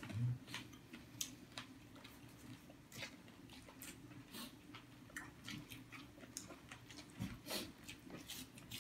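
Faint sounds of people eating with their hands: scattered small clicks and smacks of chewing and of fingers picking food off a plastic sheet, over a low steady hum.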